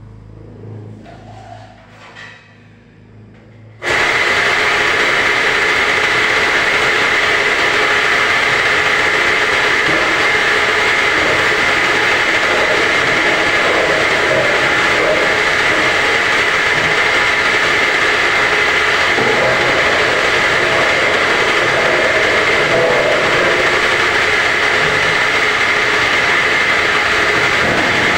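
Motor of a home-assembled round gallon bottle-washing machine switching on abruptly about four seconds in, then running steadily and loudly.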